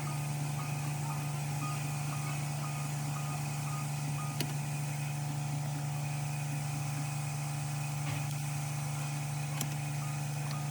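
A vehicle warning chime beeping about twice a second over a steady low hum; the beeping stops about four and a half seconds in. A sharp click comes near the middle and another near the end.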